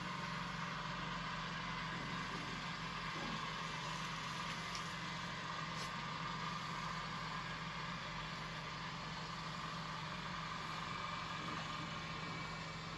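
Steady background hum and hiss with no change in level, the constant room noise under the recording.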